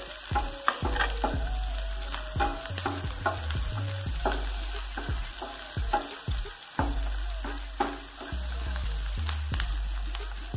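Sliced onions sizzling in hot oil in a nonstick frying pan, stirred with a spatula that scrapes and taps against the pan again and again at an uneven pace. The onions are being fried toward golden brown.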